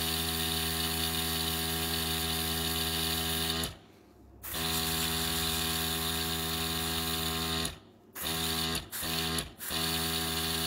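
Small airbrush compressor running with a steady hum and a hiss of air through the airbrush. It cuts out for about half a second just before four seconds in, and briefly three more times between eight and nine and a half seconds.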